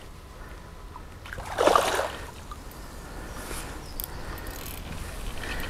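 Hooked carp splashing at the surface close to the bank, one short splash about a second and a half in, against a quiet outdoor background.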